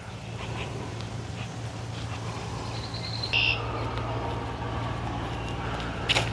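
A motor engine running steadily with a low hum, slowly growing louder, with a short bird chirp about three seconds in.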